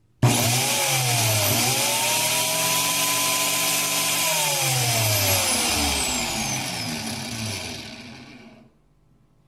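Angle grinder fitted with a studded carbide shaping disc, switched on and running free with no workpiece. It spins up to a high steady whine with a hiss, its pitch dipping once about a second in, then is switched off and winds down with falling pitch until it stops.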